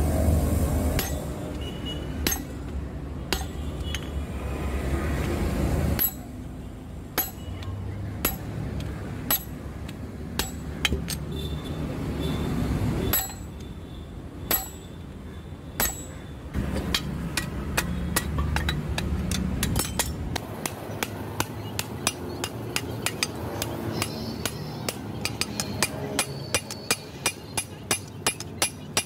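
Hand hammer striking red-hot leaf-spring steel on an anvil. For the first part the blows fall a second or so apart on a hot-cutting tool held against the glowing steel, over a low rumble. From about two-thirds of the way through they become a steady run of about two blows a second directly on the blade.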